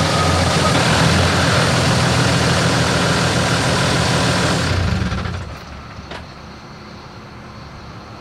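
Cummins inline-six turbo-diesel in a Dodge pickup, running just after start-up, then dying away about five seconds in.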